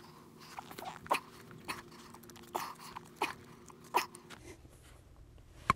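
Hand PEX crimp tool squeezing a 3/4-inch crimp ring onto the pipe over a brass fitting: a series of sharp clicks and clacks, about six, with the sharpest near the end as the ring is crimped down.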